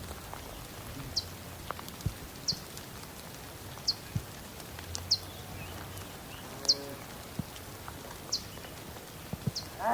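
Steady light rain hiss with scattered drop ticks, while a bird repeats a short high chirp about every second and a half.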